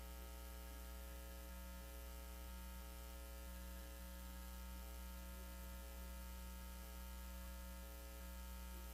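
Faint, steady electrical mains hum: a low hum with a buzzy row of overtones that does not change.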